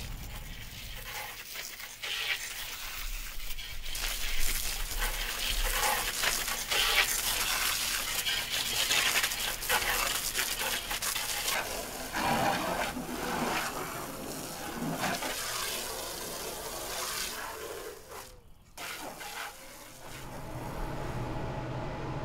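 Garden hose spraying water onto a minivan's body, a rushing hiss of spray with splashing that varies as the jet moves. Near the end it gives way to a low steady hum.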